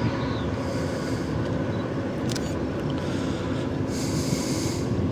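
Steady rumble of road and engine noise inside a moving vehicle, with a brief rise in hiss about four seconds in.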